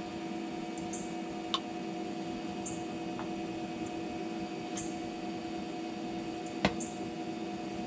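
Steady electrical hum with a few light clicks and knocks of PVC pipe and fittings being handled and pushed together. The sharpest knock comes about two-thirds of the way in.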